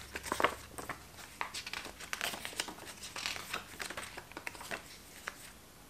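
A folded paper CD booklet and its cardboard digipack being handled and unfolded: irregular soft rustling and crinkling with light taps, dying away near the end.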